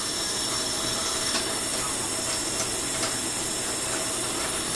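Running water hissing steadily, as from a tap running into a bird bath, with a few faint light ticks.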